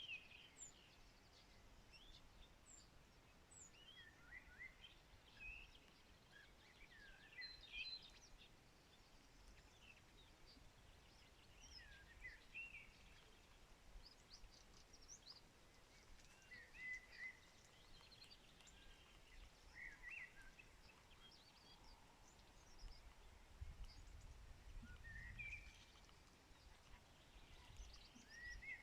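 Several birds singing faintly, many short chirps and trills from more than one bird, over a faint steady hiss. A low rumble rises and fades a little before the end.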